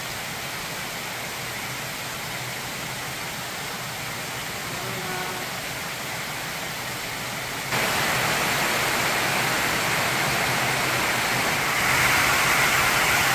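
Rain falling steadily, an even hiss that gets abruptly louder about eight seconds in and a little louder again near the end.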